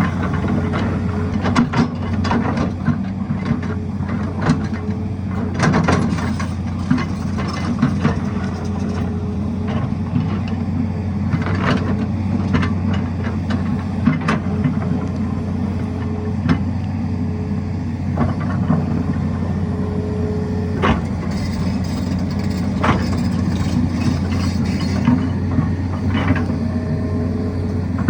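Tata Hitachi excavator's diesel engine running steadily under work, with frequent sharp knocks and clatters of the bucket on rock.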